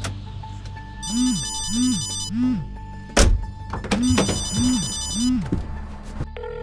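Smartphone ringing: two rounds of three quick rising-and-falling ringtone chirps, with a single heavy thump between the rounds. A steady low tone comes in near the end.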